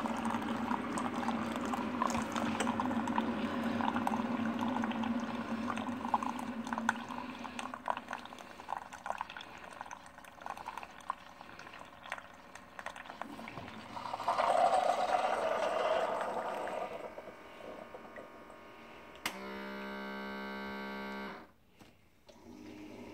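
Keurig single-cup coffee brewer pumping and dispensing coffee into a mug, with a gurgling, hissing stream and small crackles, and a louder sputtering burst about 14 seconds in as the brew finishes. Near the end, a steady buzzing tone lasts about two seconds and cuts off sharply.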